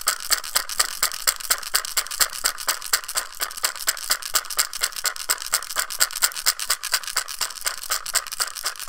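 Hand-made shamanic rattle of salmon skin stretched over an oyster shell, with ceramic beads inside, shaken in a steady fast beat of about six shakes a second.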